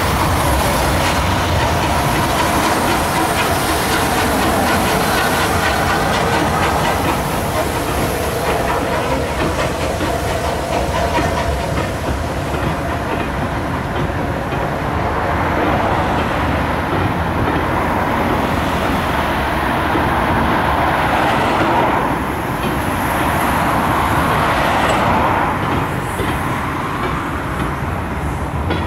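Passenger coaches of a steam-hauled train, behind SR Merchant Navy locomotive 35006, rolling past over a railway bridge: a steady, loud rumble and rattle of wheels on the rails, easing a little near the end.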